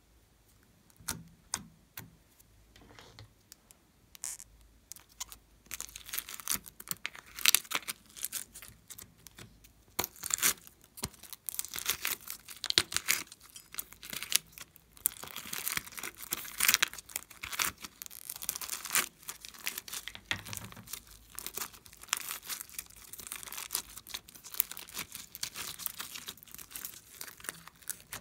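Small foam beads being scooped by hand from a plastic case and pressed into soft slime, with a dense run of crackling and squeaking clicks; the first few seconds hold only a few soft, sparse clicks.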